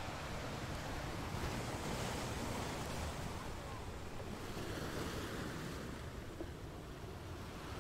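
Small waves breaking and washing up a sandy beach: a steady rush of surf that swells and eases, with a low rumble of wind underneath.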